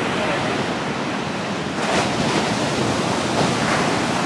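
Ocean surf breaking on a sandy beach: a continuous rush of waves that swells to a louder crash about two seconds in.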